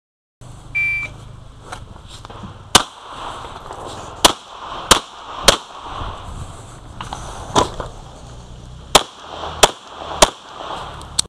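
A shot timer's short electronic start beep, then nine pistol shots from a Springfield XD(M), fired in short strings of one to three, the last one near the end.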